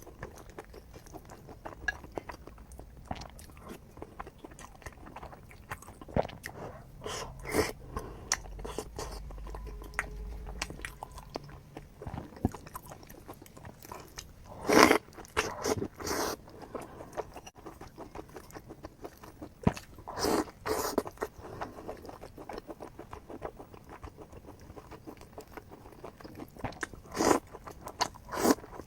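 Close-up eating sounds: a person biting and chewing crunchy food, with a steady run of small crunches and several louder crunching bites.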